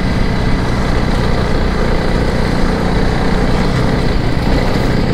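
Honda CRF300 Rally's single-cylinder four-stroke engine running at a steady, unchanging pace while riding a dirt fire trail, with an even rush of riding noise over it.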